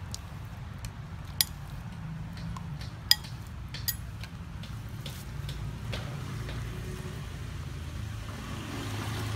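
A metal spoon clinking against an aluminium wok and a ceramic bowl as soup is ladled out: a few sharp clinks in the first four seconds, over a steady low hum.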